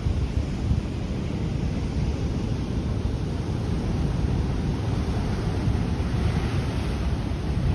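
Ocean surf surging over the rocky shore, with wind rumbling on the microphone; a brighter rush of water about six seconds in.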